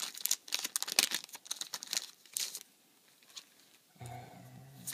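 A Yu-Gi-Oh booster pack's foil wrapper being torn open and crinkled by hand, a quick run of crackles that stops about two and a half seconds in.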